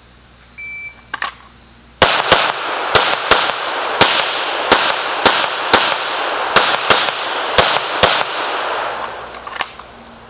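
A shot-timer beep, then a Sig Sauer P320 Legion 9mm pistol fired rapidly in quick pairs and strings, about a dozen shots over some six seconds. Each shot rings on in echo off the surrounding trees.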